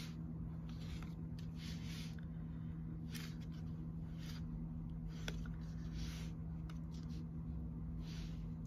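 Hands pinching and working soft modelling clay, with irregular soft rustling and squishing about once a second and one small click a little past five seconds in, over a steady low hum.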